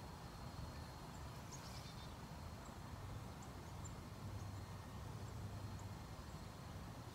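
Quiet outdoor background: a faint, steady low hum with a few brief, faint high chirps.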